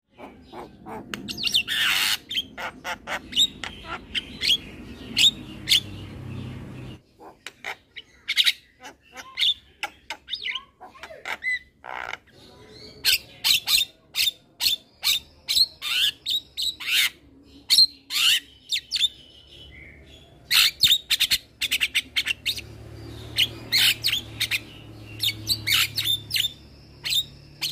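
A young male Javan myna calling in a fast, busy run of short, harsh squawks and chirps, several a second, with brief pauses between bouts.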